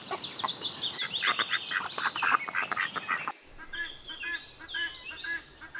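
Ducks calling in a rapid run of quacks and high calls; about three and a half seconds in the sound changes abruptly to a quieter series of short, evenly repeated calls.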